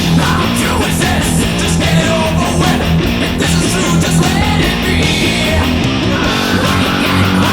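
Thrash metal recording: distorted electric guitars and drums over a loud bass guitar, the bass boosted in the mix.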